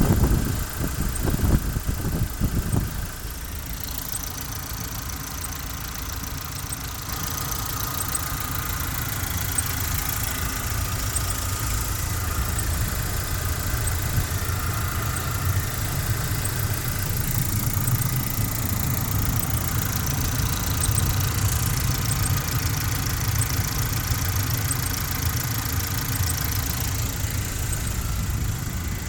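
Lada Granta's 21127 1.6-litre 16-valve engine idling, louder for the first few seconds, with a faint high squeak repeating at a steady rate. The owner suspects a failing water pump, though the dealer is not fully sure that is the cause.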